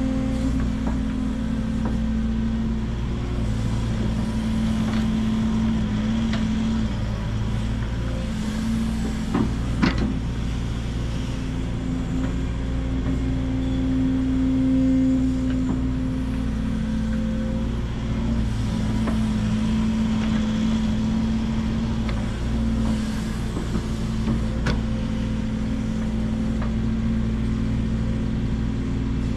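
Link-Belt 145X3E hydraulic excavator's diesel engine running steadily as it digs, with a few sharp knocks about ten seconds in.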